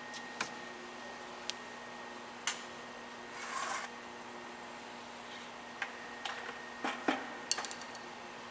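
Plastic tubing and fittings being handled: a few sharp clicks and a short rubbing noise about three and a half seconds in, over a steady background hum.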